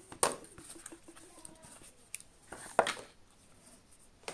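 Handling noise from cardboard packaging and an earbud charging case being lifted and turned in the hands: a few short rustles and clicks, the loudest a little under three seconds in, and a sharp click near the end.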